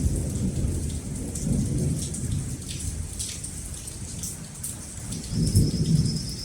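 Steady rain with thunder rumbling several times, the loudest roll about five and a half seconds in. A thin high trill starts near the end.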